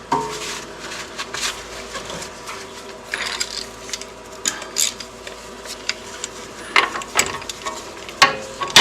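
Wiping and rubbing sounds from cleaning spilled hydraulic oil off the mower by hand, with scattered light clicks and knocks, a few sharper knocks near the end.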